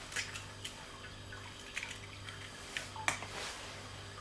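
Egg frying in hot oil in a nonstick pan: scattered sharp pops and crackles of spitting oil over a faint steady hiss.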